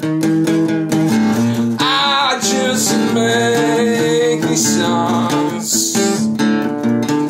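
Music: a song led by strummed acoustic guitar.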